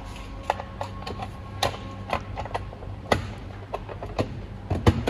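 Irregular sharp plastic clicks and knocks as the Beetel P68 telephone's housing is handled and fitted back together, over a steady low hum.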